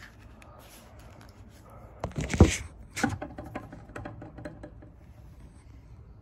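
Handling noise from a small plastic screw-lid cup being twisted and turned in the hands: a loud scrape and clatter about two seconds in, then a run of light plastic clicks and taps.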